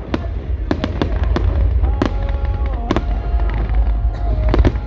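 Fireworks going off: a rapid, irregular series of sharp bangs and crackles over a constant low rumble.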